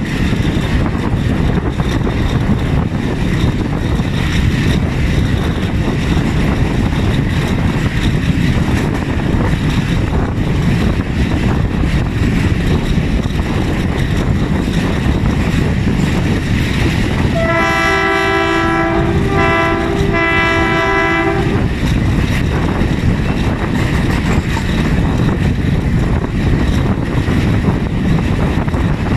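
Pakistan Railways GRU 20 (GE U20C) diesel-electric locomotive's engine running hard under load, a loud steady rumble with the noise of the train on the rails. About two-thirds of the way through, its multi-tone horn sounds for about four seconds, broken into short blasts.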